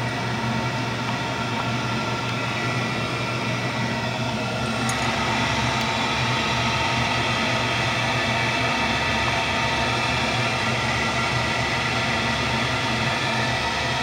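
1980s Amana Air Command 90 condensing gas furnace running: a steady fan whir with a low hum, heard close to its louvered front panel. It gets slightly louder and brighter about five seconds in.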